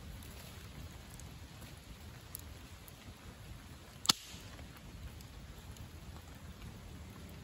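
Campfire crackling with faint scattered ticks over a low steady rumble, and one sharp loud pop about four seconds in.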